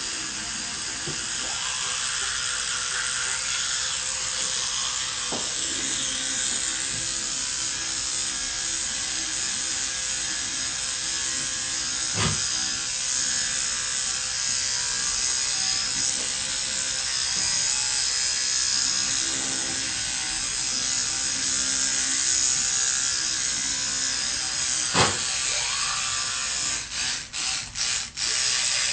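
Electric toothbrush buzzing steadily while someone brushes their teeth. A sharp knock comes about twelve seconds in and another near the end. Just before the end, the buzz cuts in and out several times in quick succession.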